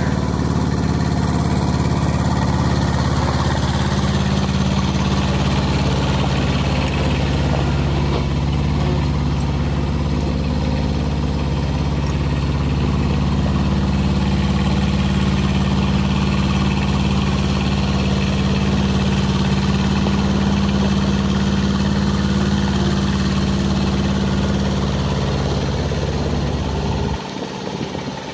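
An engine idling steadily; it cuts off suddenly near the end.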